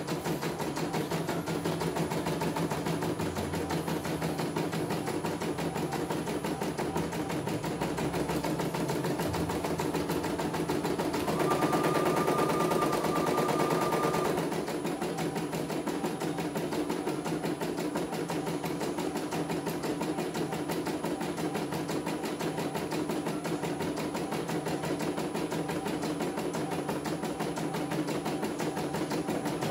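CNY E900 portable computerized embroidery machine stitching steadily, its needle clattering in a fast, even rhythm. About eleven seconds in it grows louder for roughly three seconds, with a steady high whine over the stitching.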